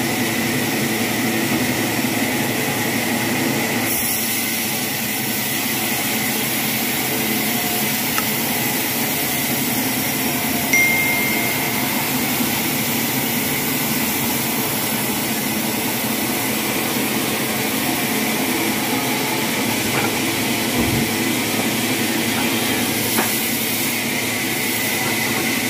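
Machinery running with a steady, even hum, with a few light clinks and knocks.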